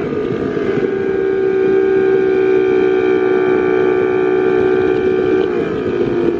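Outboard motor running at a steady high speed under load, towing a tube: an even droning hum that shifts slightly in pitch near the end.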